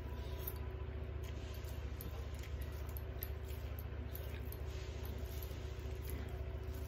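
Eating sounds: fingers squishing and mixing rice with curry on steel plates, and mouths chewing. They come as scattered small wet clicks over a steady low hum.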